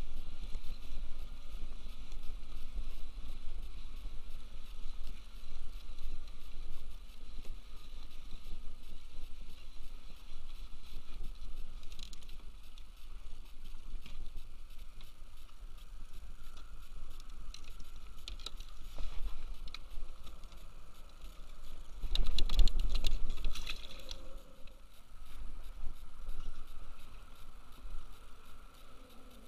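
Wind rumbling on the microphone, with water sloshing around a kayak. Rod, reel and hull handling noises come and go, and there is a louder burst of knocks and rustling about three quarters of the way through.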